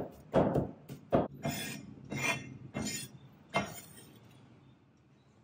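Steel cleaver on a bamboo cutting board: two heavy chops through minced dried prawns in the first second or so, then several short scraping strokes as the blade is dragged across the board to gather the minced prawns.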